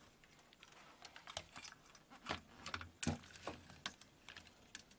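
Light, irregular clicks and taps of a CRT television circuit board and its loose cables being handled, with a louder tap about two seconds in and again about three seconds in.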